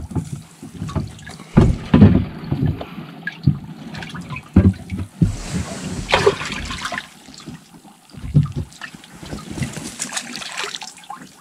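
Water splashing and sloshing in a boat's livewell as hands reach in and grab bass out of it, in irregular splashes with a few sharp knocks.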